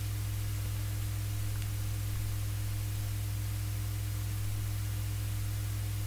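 Steady low electrical hum with an even hiss: the recording's background noise, unchanging throughout.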